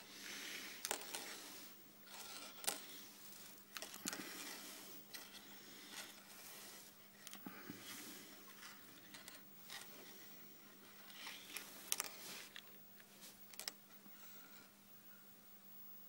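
Faint, irregular clicks, rustles and scrapes of hands handling a fishing rig's line and small tackle, dying away near the end, over a steady low electrical hum.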